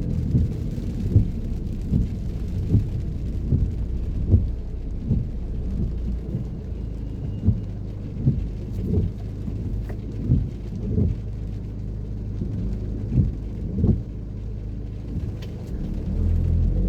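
Low, steady rumble of a car driving in rain, heard from inside, with soft thumps recurring about once a second.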